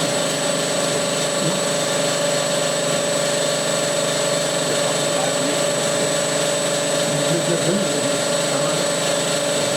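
Ingot-grinding machine running a grinding stroke, its cup wheel grinding the ingot as the table moves: a steady machine noise with a constant mid-pitched tone and a high thin tone over a hiss.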